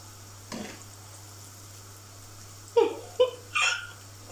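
A woman laughing in three short, quick bursts near the end, over the faint steady sizzle of dough pieces frying in oil in a pan.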